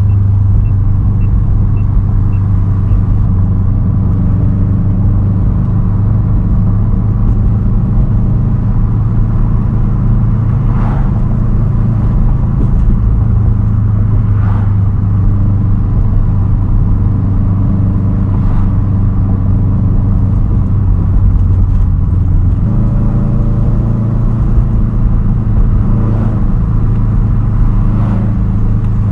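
Straight-piped 2010 Subaru WRX STI's turbocharged flat-four running at steady cruising revs, a constant low drone. The engine note changes about three quarters of the way through.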